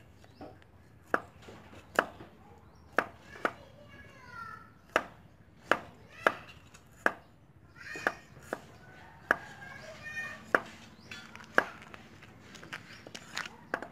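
Cleaver chopping on a thick round wooden chopping block, cutting slices of root: sharp wooden knocks, one at a time about once a second, unevenly spaced.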